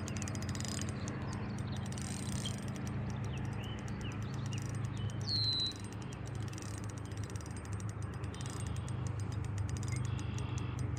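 Birds chirping in short calls, one a falling whistle about five seconds in, over a steady low hum and a fine rapid ticking.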